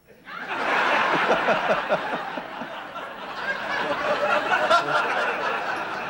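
Studio audience laughing, breaking out suddenly and swelling within about a second, then carrying on and easing slightly toward the end.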